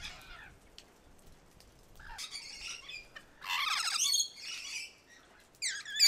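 Lorikeets squawking in harsh, screeching calls. There are two bursts of calls, the louder about three and a half seconds in, and another starts near the end.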